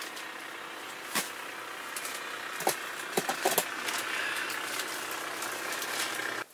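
Steady engine drone from outside, swelling a little midway. A few sharp clicks and knocks come about a second in and again between two and a half and three and a half seconds. The sound cuts off suddenly at the end.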